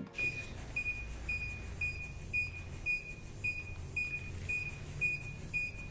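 CPR training cube giving a steady series of short, high beeps, about two a second, the pace for chest compressions, as hands press on it; a low rumble runs underneath.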